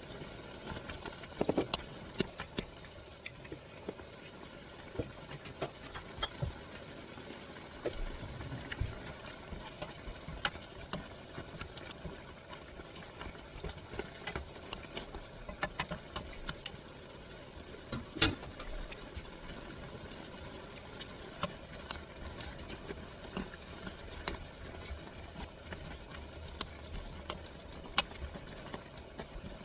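Irregular light clicks and taps of cooking utensils on a pan or dish over a faint steady hiss.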